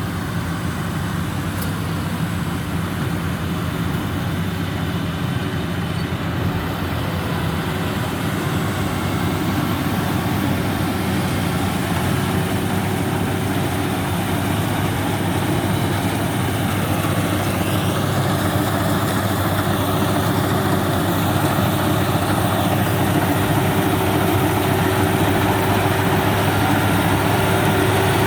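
Rice combine harvester running steadily, its engine drone growing slightly louder toward the end.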